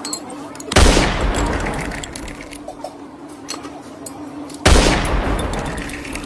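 Two loud blasts, like gunshot or explosion sound effects, about four seconds apart; each hits suddenly, heavy in the bass, and dies away over a second or more, over a faint steady hum.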